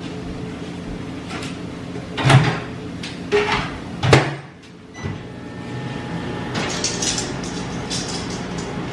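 Kitchen cupboard doors and dishes being handled: four or five sharp knocks and clunks in quick succession, then a steady hum from about halfway through.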